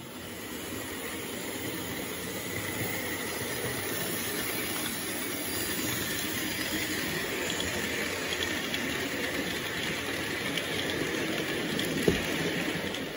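H0-scale model freight train rolling past: a steady rattling rumble of many small wagon wheels running over model track, with one sharp click near the end.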